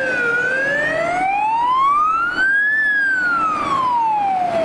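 Wailing fire-engine siren: a single electronic tone sweeping slowly, falling at first, rising to a high peak about halfway through, then falling again.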